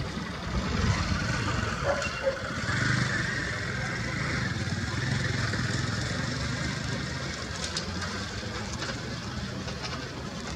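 Airbus A320's CFM56 jet engines at low thrust, a steady hum with a faint whine, as the airliner taxis onto the runway for takeoff.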